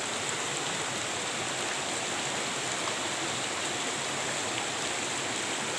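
Shallow, clear stream flowing steadily over sand and stones, a constant water noise.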